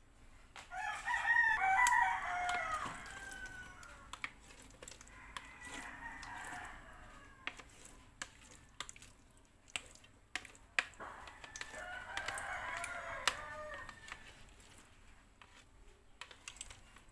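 A rooster crowing three times, the first crow the loudest. Light clicks and scrapes come from a utensil working gelatin cubes loose on a metal tray.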